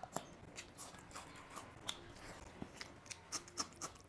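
Faint close-miked eating sounds: scattered wet mouth clicks and small crunches of chewing a mouthful of rice and small fish curry, with a bite into a raw green chilli near the end.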